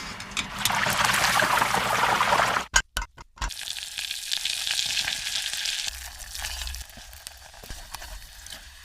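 Food sizzling as it fries in hot oil, loudest in the first few seconds. About three seconds in the sound breaks off with a few sharp clicks, then a steadier, quieter sizzle carries on and fades towards the end.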